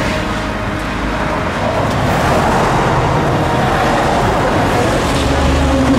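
Road traffic noise: a loud, steady rushing of passing cars that swells slightly after about two seconds.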